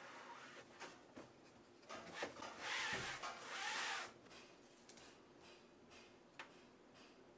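Rubbing and scraping of material being worked by hand, loudest for about two seconds in the middle, with a few light clicks.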